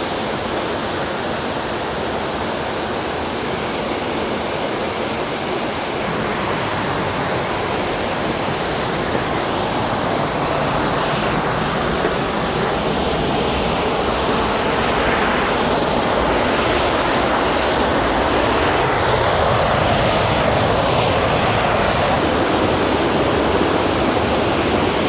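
Rushing water of a jungle waterfall or stream, a steady hiss that grows slowly louder. A thin, steady high tone sounds over it for the first six seconds.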